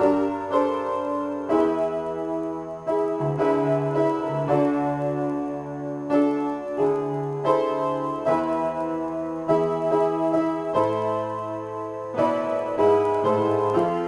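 Upright piano playing an improvised piece: chords struck about once a second over held bass notes.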